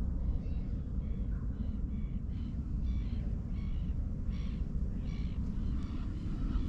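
Birds calling in short repeated calls, about two a second, over a steady low rumble.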